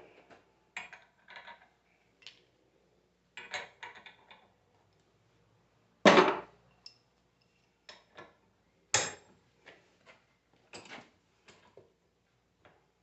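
Metal tools and alternator parts clinking and knocking on a workbench during disassembly: a string of separate knocks and clatters, the loudest about six seconds in and another about nine seconds in.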